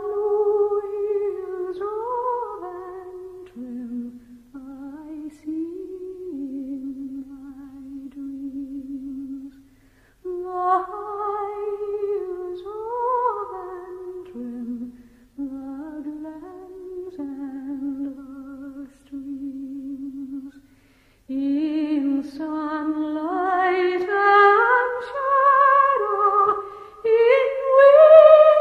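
A wordless melody hummed by one voice with vibrato, a slow phrase sung twice. A second, higher part joins in over the last several seconds and the tune climbs.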